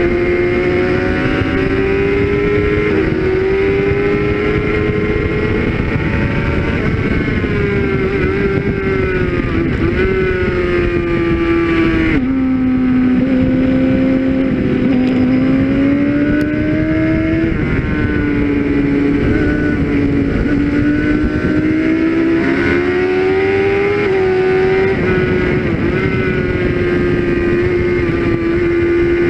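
Suzuki GSX-R600 K6 sport bike's inline-four engine at high revs, heard from on board, its pitch rising and falling with throttle and gear changes, with a sharp drop in pitch about twelve seconds in. Wind rush on the microphone runs under it.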